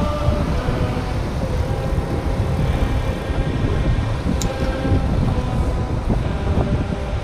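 Wind buffeting and road rumble on a chest-mounted action camera while cycling, with a steady hum of several tones over it and a short high tick about four and a half seconds in.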